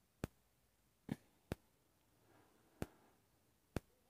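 Ballpoint pen writing on paper, mostly very quiet: five sharp light taps as the tip meets the page, with a faint scratch of the pen about two and a half seconds in.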